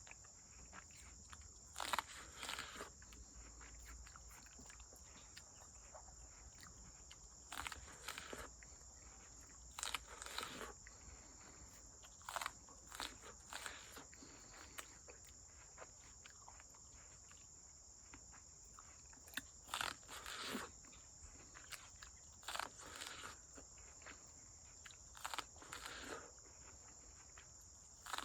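Person biting into and chewing a raw ear of sweet corn on the cob: faint crunches come in short clusters every couple of seconds. A steady high insect chorus runs underneath.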